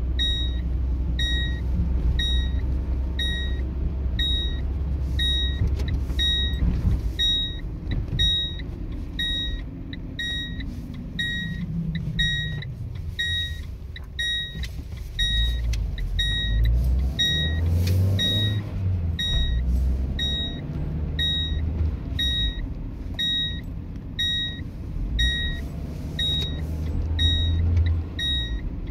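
Car seatbelt warning chime: short high beeps repeating steadily, about three every two seconds, the signal that a seatbelt is unfastened while the car is moving. Under it the car's engine and tyres rumble, rising in pitch as the car speeds up midway.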